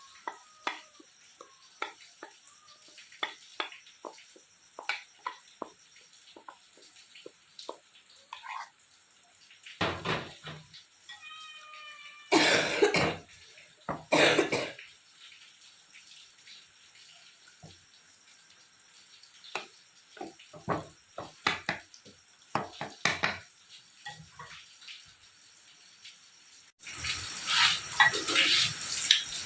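Kitchen work sounds: scattered light clicks and knocks of cooking utensils, with a few louder short bursts near the middle and a steady rushing noise that starts suddenly near the end.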